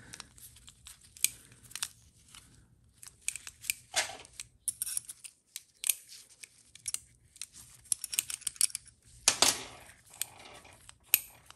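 Small metal clicks and short rustles of a TH350 transmission governor being handled and probed with a pick in gloved hands, with a shop rag crinkling. The clicks come irregularly, several a second at times, with a louder rustle about nine seconds in.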